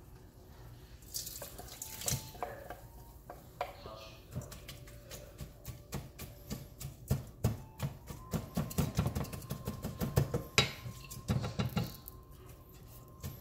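A wooden spoon stirring and pressing cooked greens in an aluminium colander set over a metal pot, with a quick run of clinks and scrapes of wood on perforated metal that is heaviest in the second half. A few knocks of the saucepan against the colander come in the first seconds.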